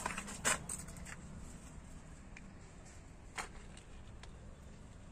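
Quiet background with a low steady hum and three short soft knocks, the loudest about three and a half seconds in.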